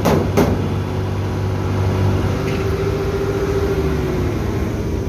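Large diesel engine of the combine harvester running steadily, with two sharp knocks right at the start.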